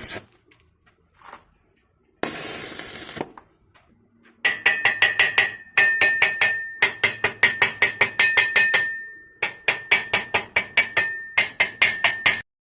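A brief burst of electric arc welding crackle, then rapid hammer strikes on steel in runs of about five a second, the square tube ringing with a clear metallic tone: a chipping hammer knocking slag off the fresh weld.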